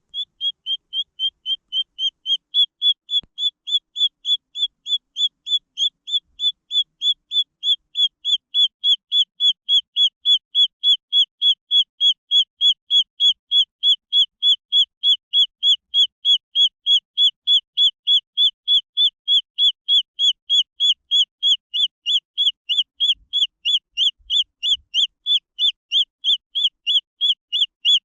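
Green junglefowl chick peeping: one short, high peep repeated very evenly, about three times a second.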